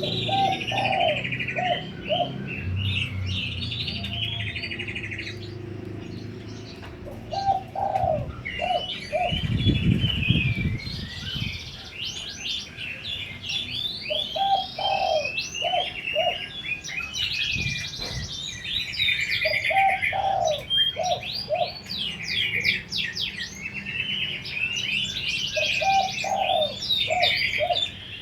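Spotted dove cooing, a short phrase of about four notes repeated every five to six seconds, over constant high chirping from other small birds. A brief low rustle about ten seconds in.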